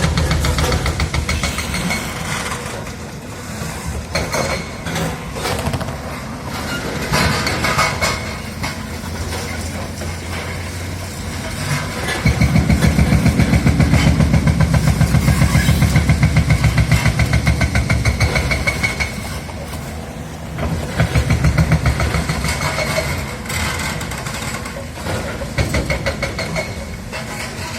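Heavy demolition machinery working: a diesel engine running under load with rapid, even pulsing. It grows louder for several seconds about midway, then eases back.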